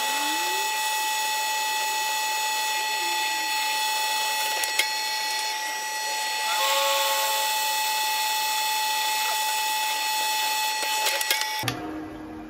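Benchtop mill-drill running with a steady high whine while a twist drill bores a hole through a metal chuck adapter plate, with a few short squeals from the bit cutting. The sound stops suddenly near the end.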